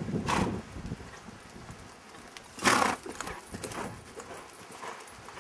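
A horse loping in a sand arena, its hooves thudding dully on the soft footing, with a loud rushing burst about two and a half seconds in.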